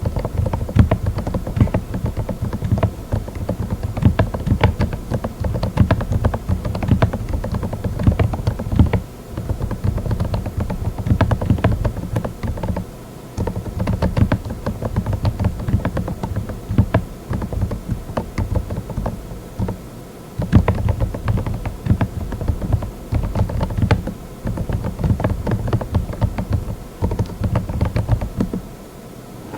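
Mechanical keyboard with Moksae silent linear switches (45 gf) being typed on rapidly: fast runs of muted, low-pitched keystrokes, broken by short pauses a few times.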